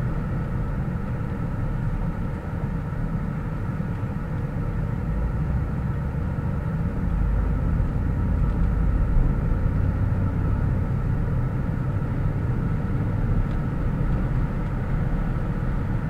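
Steady low rumble of a motor vehicle running, with a faint steady hum above it.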